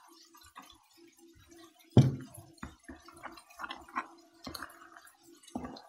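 A spoon stirring wet ground green gram and egg into a batter in a bowl while water is poured in: squelching and dripping, with a run of sharp knocks of the spoon against the bowl, the loudest about two seconds in.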